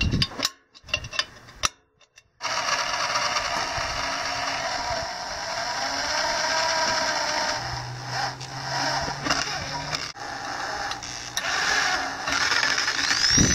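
Electric drill running and boring bolt holes through a steel engine-mount plate, starting about two seconds in after a few short clicks and cutting steadily from then on, with a short rising-and-falling squeal from the bit near the end.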